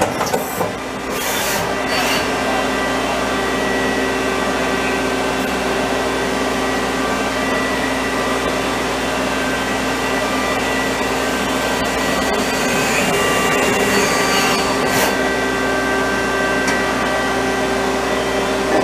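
Daewoo Lynx 200A CNC lathe running under power: a steady machine whine and hum with several fixed tones, with a few short knocks in the first couple of seconds.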